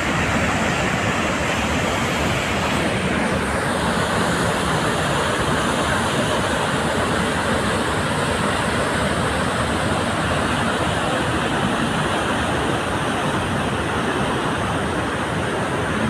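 Aharbal waterfall's heavy flow rushing steadily over a rock ledge into a narrow gorge, a loud even rush of water. About three seconds in, the highest hiss thins out a little.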